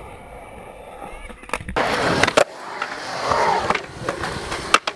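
Skateboard wheels rolling on concrete, with sharp clacks of the board. The sound gets suddenly louder and harsher a little under two seconds in.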